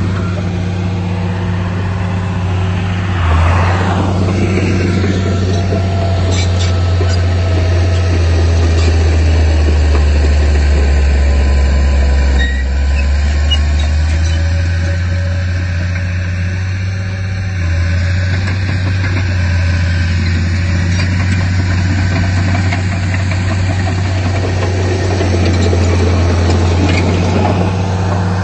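Diesel engine of a heavy earthmoving machine running steadily, its pitch sagging for a few seconds in the middle and then picking back up as the load changes.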